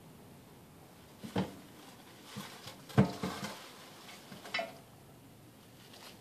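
Kitchen items knocked and set down at a counter: about five short knocks and clatters over a few seconds, the loudest about three seconds in.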